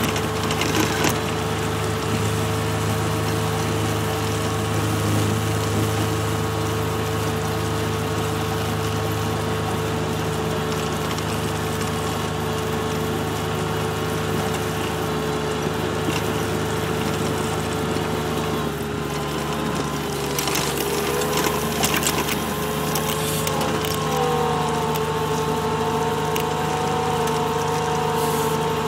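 Kubota RTV 1140 CPX utility vehicle on Soucy tracks driving through deep snow: its diesel engine running with a steady whine from the drivetrain and tracks, which shifts in pitch about twenty seconds in. A few knocks and clatters as it bumps along.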